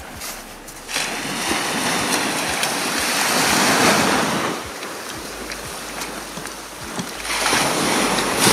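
Waves breaking and washing up a sand beach. One wave rushes in about a second in and dies away around five seconds, and another builds near the end.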